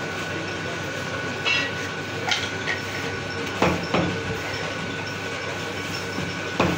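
A meat cleaver chopping goat meat on a wooden block, four sharp thuds at uneven intervals over a steady background noise.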